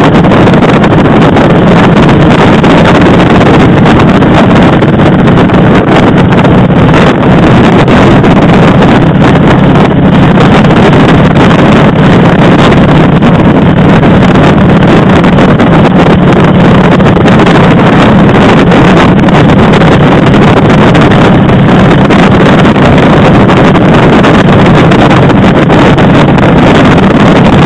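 Motorcycle engine running steadily at road speed, heard under loud, constant wind noise on the microphone.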